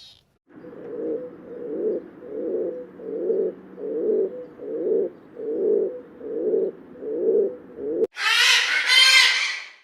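A bird cooing over and over, low-pitched calls at about one a second. Near the end it cuts abruptly to a louder, higher-pitched animal call.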